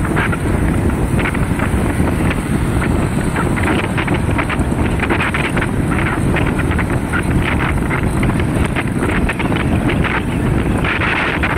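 Wind buffeting a phone's microphone on a moving vehicle, gusting unevenly over a steady low rumble of engine and road noise.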